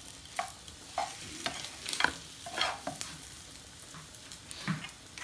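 Wooden spoon stirring a thin coconut-milk chicken curry in a metal pot, with irregular scrapes and knocks of the spoon against the pot.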